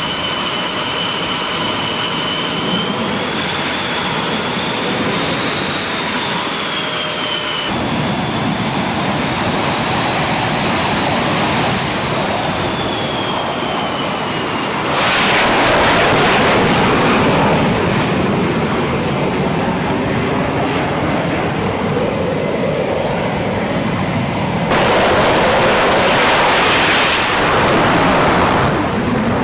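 Jet engines running: a high turbine whine that rises and falls in pitch over a steady rush. A louder roar swells about halfway through and again near the end, with abrupt changes between cuts.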